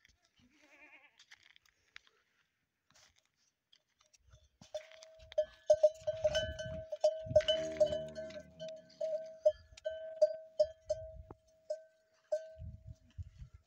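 A dromedary camel's neck bell clanking irregularly as the camel gets up and walks, starting about five seconds in and stopping near the end. A camel gives a low call about halfway through.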